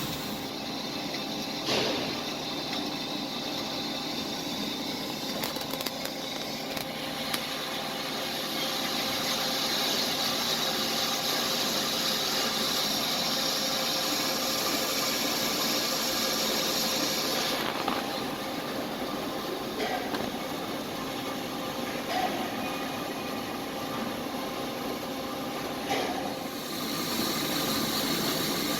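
Hyd-Mech H-22A automatic horizontal band saw running with a steady mechanical hum. A higher hiss comes in about seven seconds in, drops out after about seventeen seconds and returns near the end, with a few knocks along the way.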